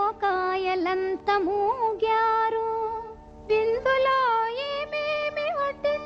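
Female playback voice singing a Telugu film song in ornamented, sliding phrases over steady held accompaniment notes. The voice breaks off briefly about three seconds in, then picks up again.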